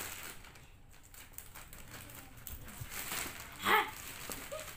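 Plastic mailer bag crinkling and rustling as it is tugged open by hand, with one brief, louder yelp-like cry about three and a half seconds in.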